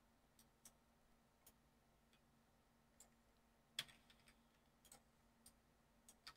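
Faint, scattered clicks of a computer mouse and keyboard, one louder click nearly four seconds in, over a faint steady hum.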